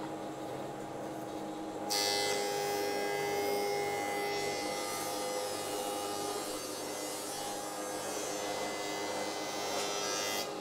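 Rikon 25-010H jointer-planer in thicknesser mode, its motor and cutterhead running. About two seconds in, the blades bite into a board fed through, and the sound turns suddenly louder and harsher. The cut holds steady until the board clears the cutterhead just before the end, when it drops back to the machine running without load.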